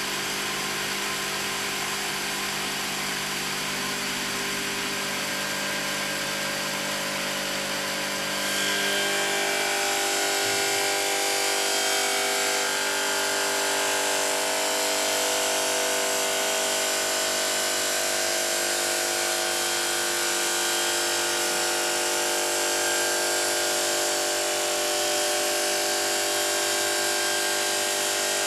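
HLSQ-450 automatic bridge saw running its circular blade through a stone slab: a steady machine whine made of several held tones. About eight seconds in it gets louder and the tones shift higher, as the cutting load changes.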